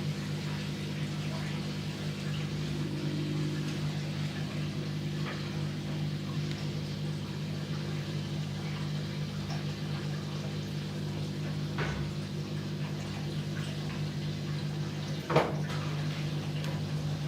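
Gorenje WA50060 washing machine running in its rinse cycle: a steady low hum with water running inside, and a single click about fifteen seconds in.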